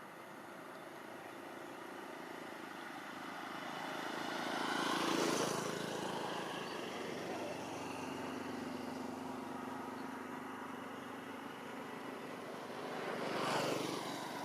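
Two vehicles passing by, the first loudest about five seconds in and the second near the end, each swelling and then fading.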